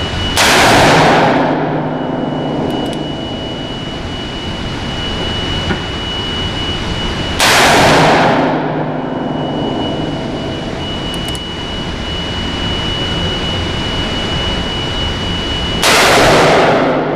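Three shots from a Ruger Super Redhawk Alaskan revolver in .454 Casull, about eight seconds apart, each with a long echoing tail in the block-walled indoor range. Between the shots a steady low hum and a thin high whistle continue.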